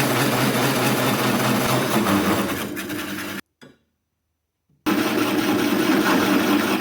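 A power tool running under load, cutting out the steel bracket plate. It stops abruptly about three and a half seconds in, then starts again about a second and a half later.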